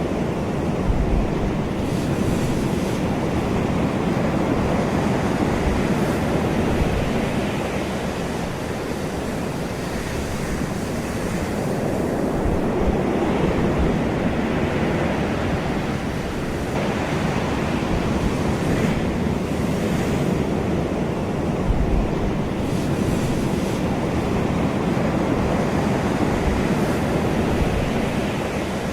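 Ocean surf: waves breaking and washing up the shore as a continuous rushing that swells and eases every few seconds.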